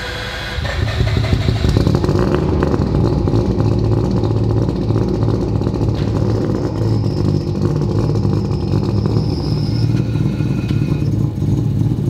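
Turbocharged three-rotor rotary engine in a Mazda RX-7 running just after start-up, with a rapid crackle through its steady note. It gets louder less than a second in.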